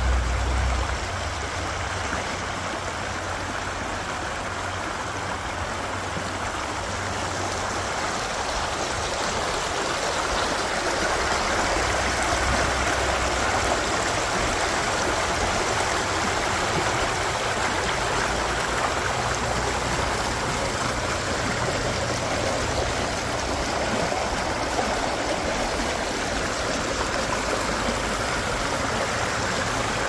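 Running water in a stream, flowing steadily as a continuous, even rush with no breaks.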